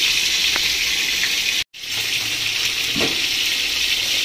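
Large pot of spiced water at a vigorous rolling boil, bubbling and hissing steadily, with a brief break in the sound about one and a half seconds in.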